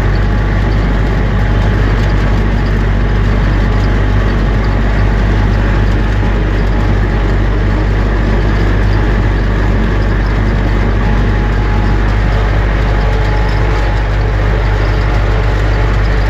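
UTB Universal U650 tractor's four-cylinder diesel engine running steadily under working load, heard from inside the cab as a loud, unchanging deep drone while it pulls a field sprayer.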